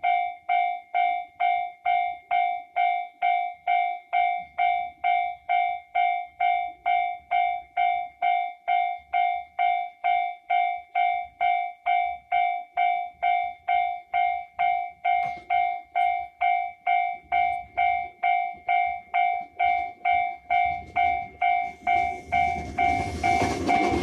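Japanese level-crossing warning bell ringing steadily, about two dings a second. In the last few seconds a JR 221 series electric train arrives, and its rumble and wheel noise rise over the bell as it passes the crossing.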